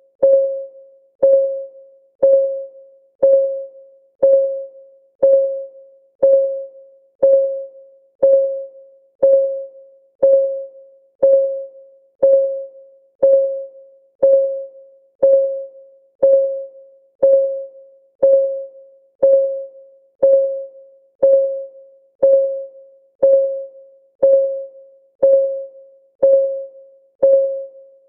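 Countdown timer's clock ticking, one tick a second, each tick a short ringing note that dies away quickly.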